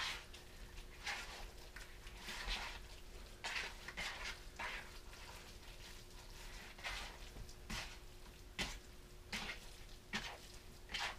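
Hands squeezing and kneading a wet raw ground-beef meatloaf mixture with egg and diced tomatoes in a bowl: faint, irregular squelches about once or twice a second, over a faint steady hum.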